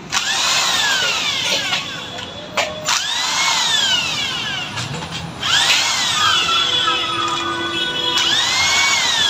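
Handheld electric drill-driver run in four bursts. Each burst's whine climbs quickly in pitch as it spins up, then falls as it winds down.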